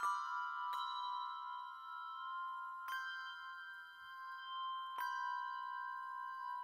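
Handbells played four-in-hand, two bells in each hand, in two overdubbed parts: slow struck chords that ring on and overlap, with fresh strikes at the start, just under a second in, about three seconds in and five seconds in.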